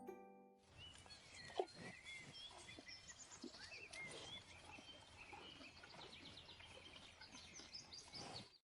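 Faint outdoor field recording of small birds chirping and twittering over a steady background hiss, with a single short knock about a second and a half in.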